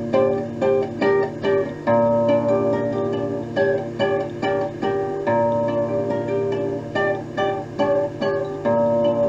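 Music played back from a cassette tape: a rhythmic tune of plucked-string notes over a steady bass line.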